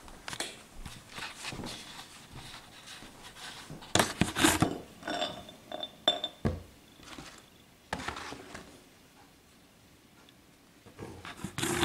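Stiff cardboard model parts being handled, flexed and pressed together with masking tape: irregular light rustles, creaks and clicks, with a louder cluster about four seconds in.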